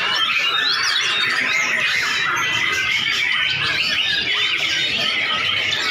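Many white-rumped shamas (murai batu) singing at once in competition, a dense, unbroken tangle of overlapping whistles, trills and chirps.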